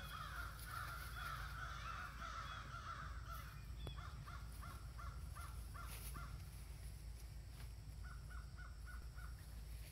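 Animal calls: a dense run of chirping calls over the first few seconds, then two series of short, evenly spaced notes, about five a second, one around four seconds in and one near the end. A steady low rumble runs underneath.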